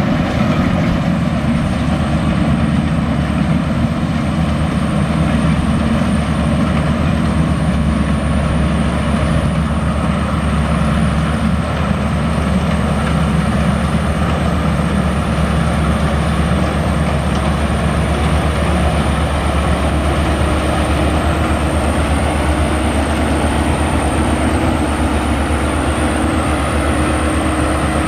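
Maxxi Bimo combine harvester running steadily while cutting and threshing rice: a loud, even engine drone with a thin, steady high whine above it.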